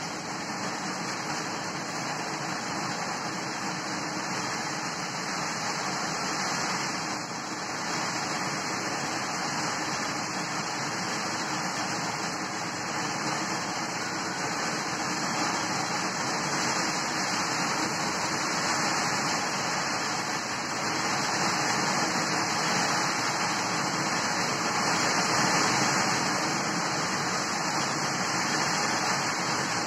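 Heavy rain pouring down in a storm: a steady, dense hiss that grows a little louder in the second half.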